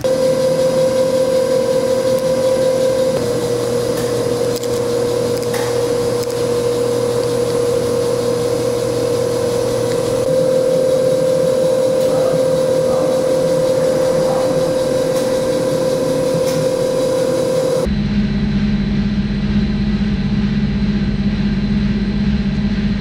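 Ransome 200P welding positioner's electric gear drive running, a steady machine whine that shifts slightly in pitch a couple of times. About three-quarters through it gives way abruptly to a lower, duller hum.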